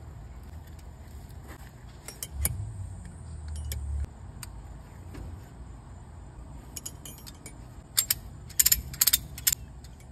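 Ratchet strap's metal ratchet being worked, with scattered clicks and then a quick run of loud, sharp clicks near the end as the strap is tightened down. A low rumble of handling noise comes between about two and four seconds in.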